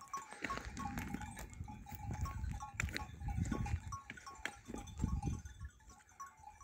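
Small bells on a grazing flock of goats tinkling again and again at two pitches, over a low, gusting wind rumble on the microphone.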